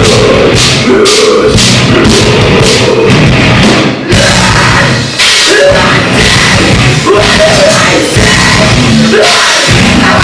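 A metalcore band playing live at full volume: drums with crashing cymbals under dense, heavy rock music. The music dips briefly about four seconds in.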